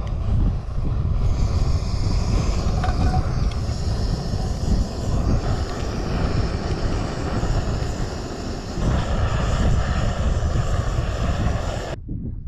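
Wind buffeting the microphone in a heavy low rumble, with a steady rushing hiss of a lit camping stove burner starting about a second in. Both cut off abruptly near the end.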